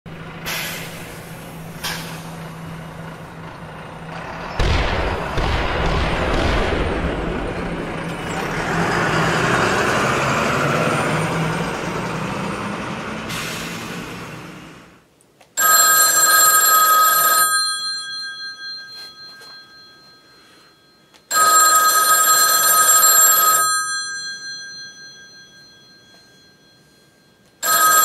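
For the first half, a rush of noise with a thump about four and a half seconds in, fading out around the middle. Then a rotary desk telephone's mechanical bell rings three times, each ring about two seconds long and about six seconds apart, ringing away after each burst.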